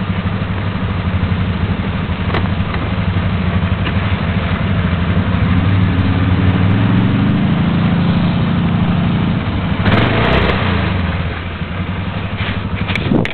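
ATV engine running at idle, its pitch rising a little partway through. A brief rushing burst comes about ten seconds in, and the engine sound drops off near the end.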